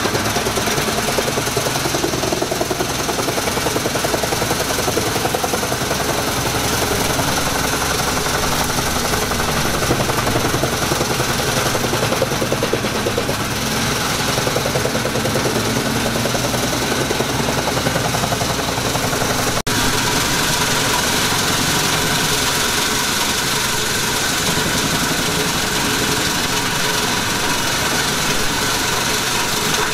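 Pezzolato PTH 500 tractor-driven wood chipper chewing through eucalyptus branches and small trunks, with the Fiat 140-90 tractor's diesel engine working steadily under load. The sound changes abruptly about two-thirds of the way in.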